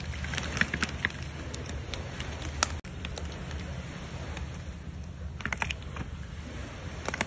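A steady low motor hum with scattered sharp clicks and crackles over it, and one sharper knock a little under three seconds in.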